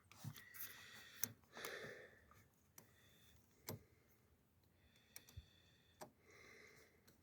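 Near silence broken by a few faint, scattered clicks and taps, the sound of hands working the nut and bolt of a battery terminal clamp.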